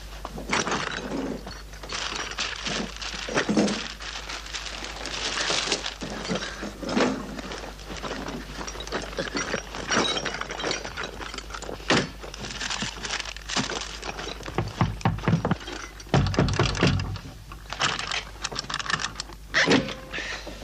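A long run of clattering knocks and thuds with things breaking, as tools and objects are knocked about. A burst of heavy, deep thuds comes about three-quarters of the way through.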